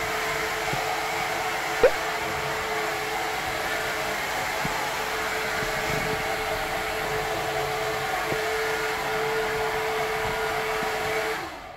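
Handheld hair dryer running steadily with a constant hum, switched off near the end. A brief sharp sound cuts through it about two seconds in.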